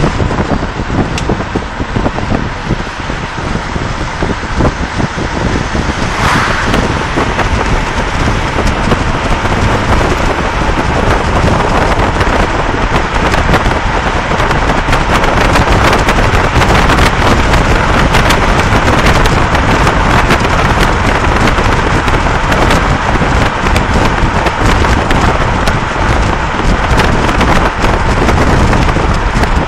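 Wind rushing over a phone's microphone together with road noise from a moving vehicle, a loud, rough, continuous roar that grows louder over the first half.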